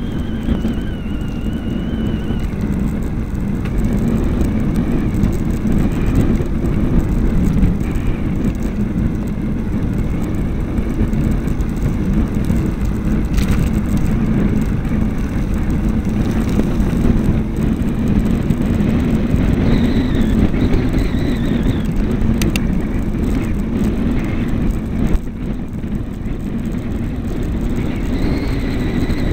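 Steady rumble of wind buffeting the microphone and tyres rolling on wet tarmac, heard from a camera mounted on a moving bike.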